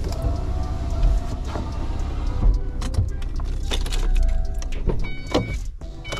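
Ford diesel van's engine running at low speed, heard inside the cab, with a few knocks and clicks. Near the end the engine rumble drops away and short electronic warning beeps sound twice.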